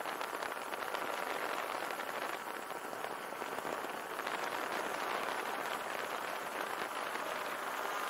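Quadcopter drone in flight, heard from a camera right under its spinning propellers: a steady, dense rushing noise from the rotor downwash blowing over the microphone.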